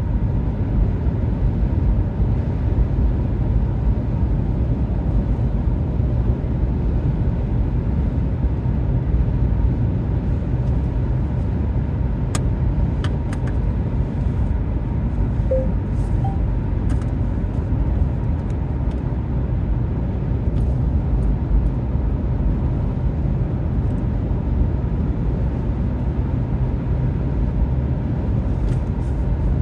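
Steady low road and tyre rumble inside a car's cabin at highway speed, with a few faint clicks near the middle.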